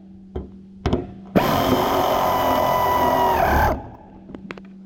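Air-powered wrench running for about two seconds, then its pitch drops as it spins down, snugging the nuts that hold sickle sections on a combine bean head knife. Two short clicks come just before it starts.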